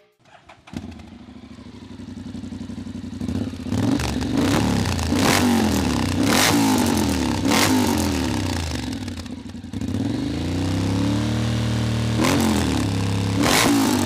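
Honda X-ADV 750's parallel-twin engine starting through an Akrapovic exhaust with headers and no catalytic converter. It catches about a second in and settles to idle, then is revved in repeated quick throttle blips and one longer rev that rises and falls.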